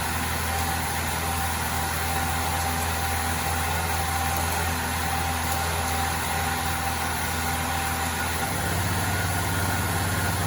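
Generator engine running steadily, its low hum shifting slightly about eight and a half seconds in.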